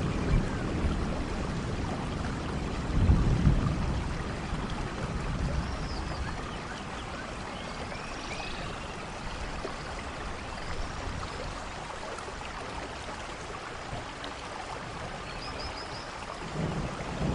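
Steady running water of a stream, with occasional short bird chirps over it and a louder low rumble about three seconds in.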